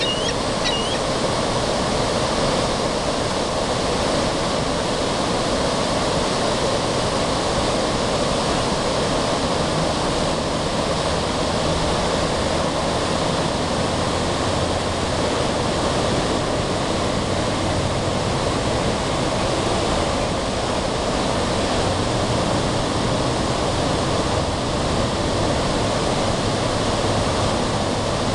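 River water flowing steadily in an even rushing wash. A few brief bird chirps sound in the first second.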